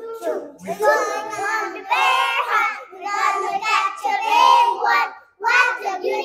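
A young child singing in a sing-song chant, in short phrases.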